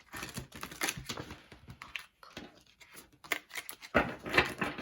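A deck of tarot cards being shuffled by hand: a dense run of quick papery clicks, with a louder flurry near the end.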